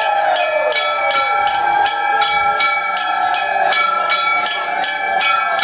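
A puja bell rung rapidly and steadily, about three strikes a second, its ringing tones overlapping. Beneath it runs a lower sustained tone that glides down about a second in.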